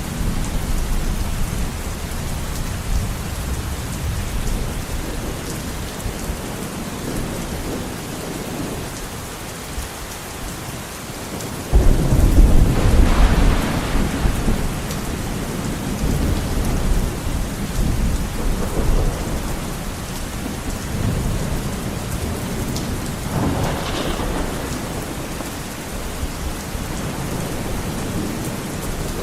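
Heavy rain beating steadily on a window, with thunder rumbling low throughout; about twelve seconds in a loud thunderclap breaks and rolls away over several seconds, and a smaller peal follows near the end.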